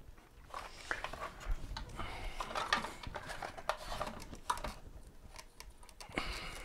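Hands handling a mobility scooter's tiller parts, the plastic shroud and wiring: irregular light clicks, taps and scrapes.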